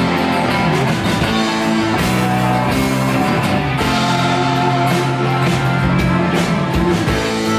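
Live country-rock band playing an instrumental break between the chorus and the next verse: electric guitars, bass and drum kit.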